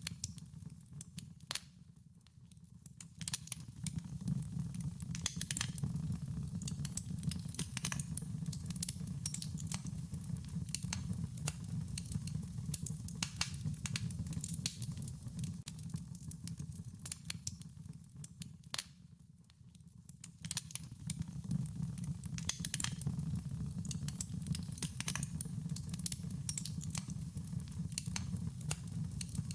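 Wood fire burning: irregular sharp crackles and pops over a steady low rumble of the flames. The sound dips down twice, about two seconds in and again around nineteen seconds, then comes back up.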